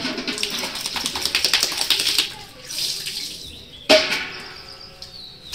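Water poured from a steel bucket splashing over a dog's back and onto a concrete floor, followed about four seconds in by one sharp metallic clank with a brief ring as the steel bucket is set down.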